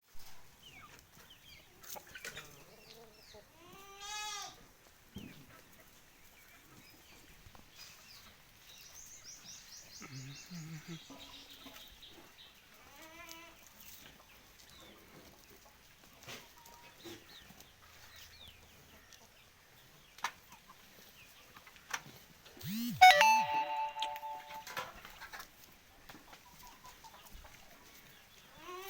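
Farmyard animal calls: goats bleating now and then, with fowl calling in between and a loud call about 23 seconds in.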